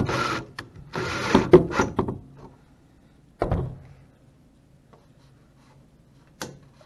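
Cordless 18V drill driving a self-tapping screw through a cap plate into the end of an aluminium extrusion, in two short runs over the first two seconds. A knock follows about three and a half seconds in, and a sharp click near the end.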